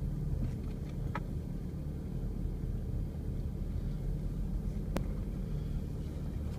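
Engine of an off-road vehicle running low and steady, heard from inside the cab as it creeps along a rough dirt trail, with a single sharp click about five seconds in.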